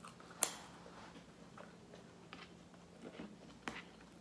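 Quiet eating sounds of a person chewing a bread-roll sandwich, with small mouth clicks and smacks and one sharp click about half a second in.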